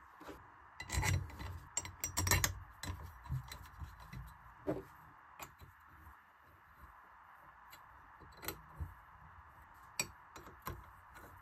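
Steel-on-steel clinks, knocks and scrapes as a welded steel bracket is bolted to a round steel plate by hand, a small tool turning in its bolt holes. The knocks come in a quick cluster about a second in and again around two seconds, then as scattered single clinks.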